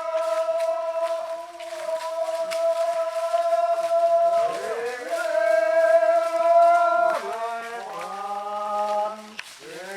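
Rongmei men singing their forest folk song together in long held, chant-like notes that slide to a new pitch a few times.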